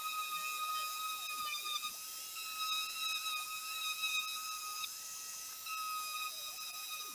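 Small hand-held disc sander running steadily on a car door panel, a high whine over a hiss, as it cuts back freshly sprayed paint.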